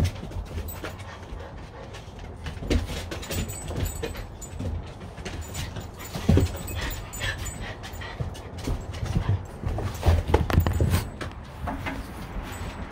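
Dogs, a French bulldog and a larger tan dog, making excited dog noises during bite-sleeve play, with irregular knocks and thumps throughout.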